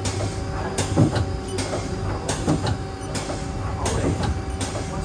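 Haas SL-10 CNC lathe's tool turret indexing from station to station, a sharp clunk about every 0.7 seconds over the steady hum of the running machine.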